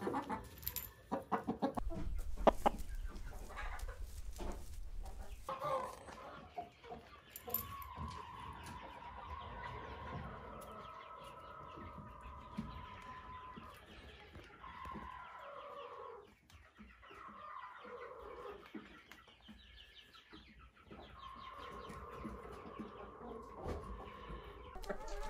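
Chickens clucking and calling, fairly faint, with a few knocks and a low rumble in the first few seconds.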